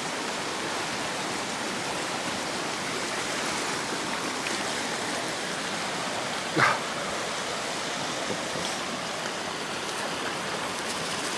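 Steady rush of running water, like a stream or weir. About two-thirds of the way through, one short bark-like call is heard.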